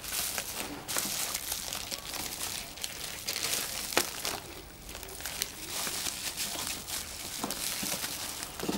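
Thin plastic packaging bags crinkling and rustling as a laptop's bagged power adapter and cord are handled, with a sharp click about four seconds in.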